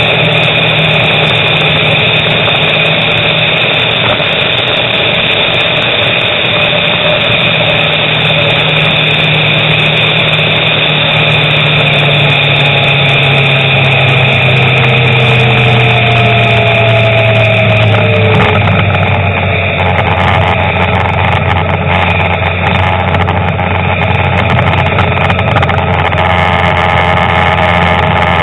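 A car's engine and road noise heard from inside the cabin while driving. The engine note falls gradually over several seconds about halfway through, as the car slows, then holds steady.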